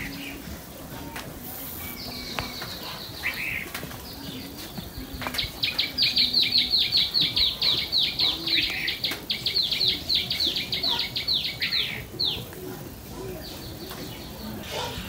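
A bird calling in a long series of quick, down-slurred whistled notes, about four or five a second, loudest from about five to twelve seconds in, after a shorter run of notes about two seconds in.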